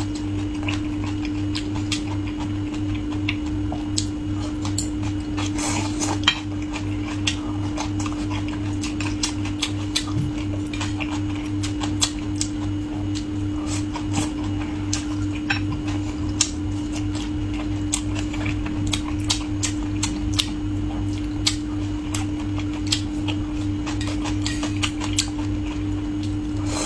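Cooking in a wok: many irregular clicks and scrapes of a metal spatula against the pan over a steady hum.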